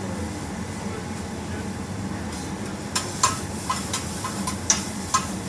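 Kitchen utensils knocking and clicking sharply, about two or three times a second, starting about halfway through. A steady hiss runs underneath.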